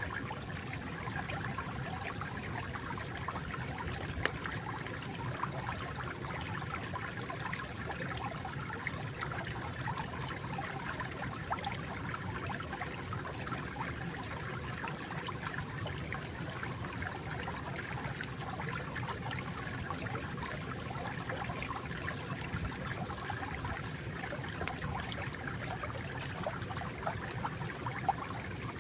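Water trickling and babbling steadily over stones in a shallow stream, with small drips and splashes here and there.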